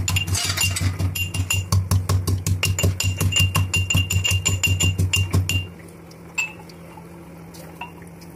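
Steel pestle pounding in a small steel mortar: rapid ringing metallic strikes, about five or six a second, that stop about six seconds in, followed by a few light clinks as the mortar is handled.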